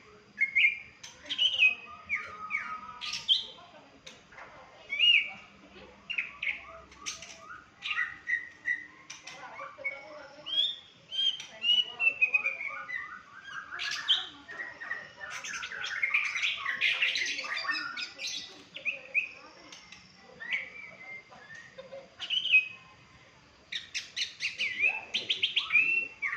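A songbird singing: a long varied run of chirps, slurred whistles and fast trills, with a burst of rapid repeated notes near the end.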